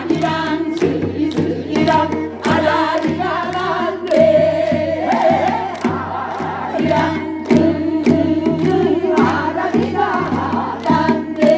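Several performers singing a song together over music with a steady beat.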